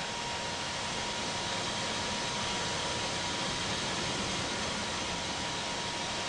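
Steady rush of airflow and engine noise inside an airliner cockpit on final approach, with a thin steady whine running under it.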